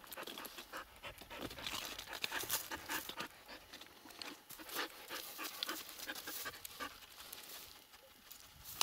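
Laika dog panting in quick, short breaths.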